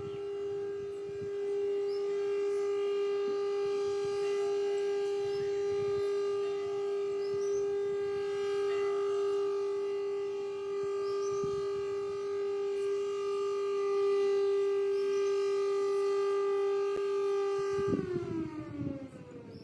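ELLAQUETA belt-driven fire siren sounding its noon test blast: a loud, steady tone held at full pitch, then winding down with falling pitch about 18 seconds in.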